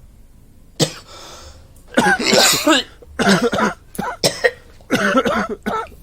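A person coughing repeatedly. A sharp catch about a second in is followed by a breath, then four harsh, rough coughing bouts, each lasting under a second.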